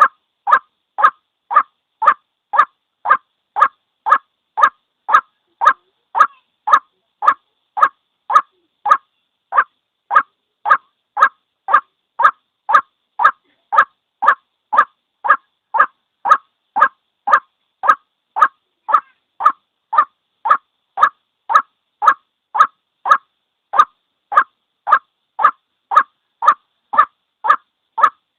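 White-breasted waterhen giving its single call: one short note repeated over and over, about two a second, with a couple of brief breaks.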